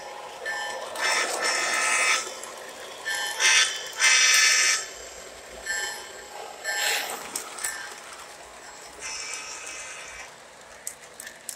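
Horn from an O-gauge Lionel model diesel locomotive's onboard sound system, sounded in a series of blasts, some long and some short, as the train starts to roll.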